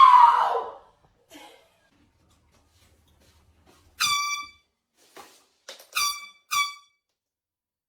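Air horn sounding three short blasts: one about four seconds in, then two in quick succession near the end. At the very start a loud tone slides down in pitch and fades out.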